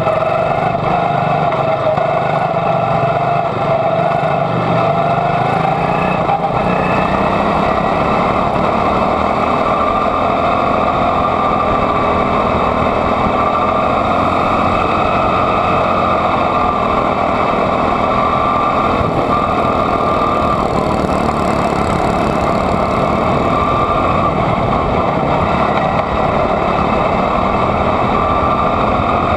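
Junior Honda quarter midget's single-cylinder Honda engine running continuously under race load, its pitch rising and falling a little as the throttle is worked.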